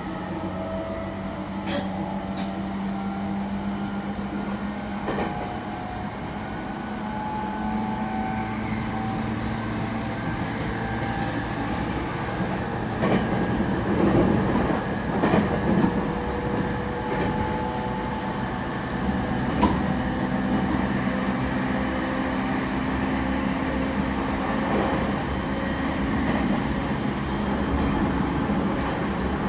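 Interior running sound of a JR East E231 series 0 subset commuter train, with its Mitsubishi IGBT VVVF inverter and traction motors giving steady tones that change pitch in steps over a continuous wheel-on-rail rumble. A cluster of knocks comes about halfway through as the wheels pass over rail joints or points.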